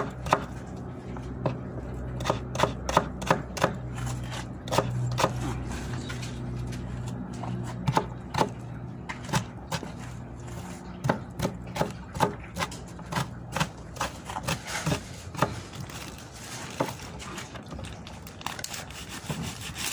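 Kitchen knife chopping raw meat on a cutting board: a run of short, irregular knocks, with a steady low hum underneath.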